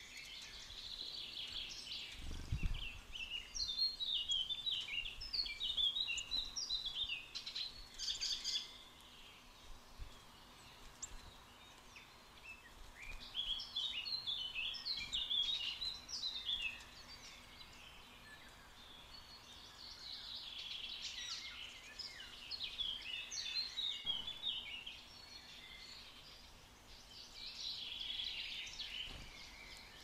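A small songbird singing short phrases of quick high notes, each lasting a few seconds, about four times, with pauses between. A brief low bump sounds a couple of seconds in.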